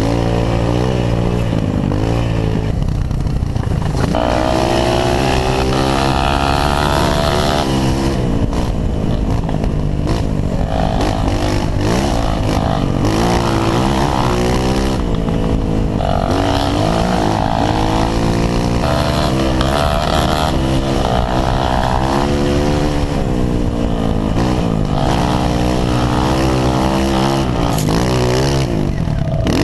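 Honda CRF 230F's single-cylinder four-stroke engine running under load, its revs rising and falling again and again through the throttle and gear changes of trail riding, picked up close from the rider's helmet.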